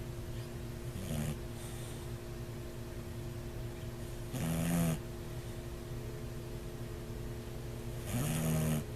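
Bulldog snoring: three snores a few seconds apart, each a short pitched snore under a second long, the first one weaker. The uploader says such snoring could be a sign of sleep apnea.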